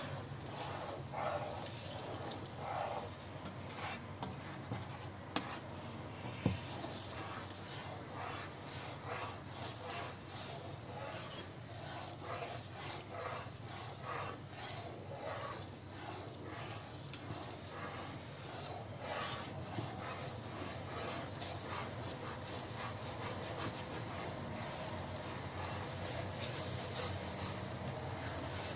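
Plastic spatula stirring and scraping beaten eggs in a nonstick frying pan, with frequent small irregular scrapes and taps over a light sizzle of eggs setting, and a steady low hum beneath.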